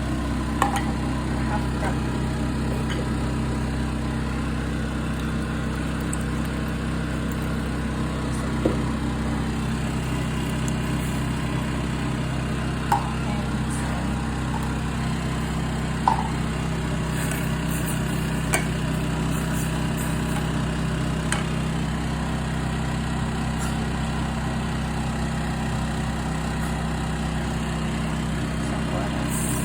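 Steady low mechanical hum, even in level throughout, with a few short sharp clicks.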